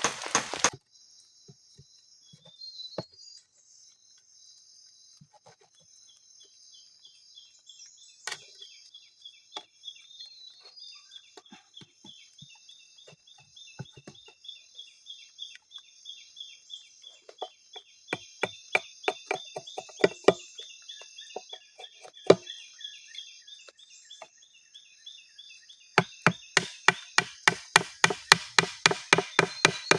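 Sharp chopping knocks, scattered at first and then a fast even series of about three to four strokes a second near the end, over a steady high trilling of night insects.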